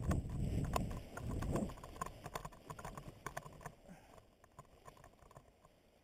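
Wind noise on the microphone during a paraglider's low final glide fades out within the first two seconds. A run of irregular knocks and clicks follows as the pilot lands on the grass.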